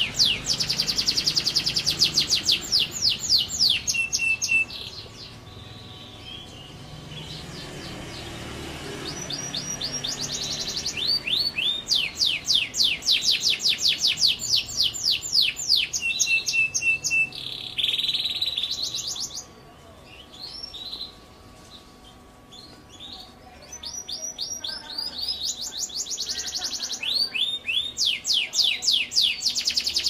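Domestic canary singing: long rolling trills of fast repeated high notes, broken twice by quieter pauses between phrases.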